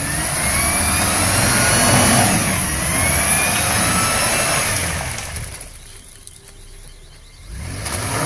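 Engine of a red 4x4 SUV revving hard as it ploughs through deep mud, with rising whines as the revs climb. The revs fall away about five and a half seconds in and pick up again near the end.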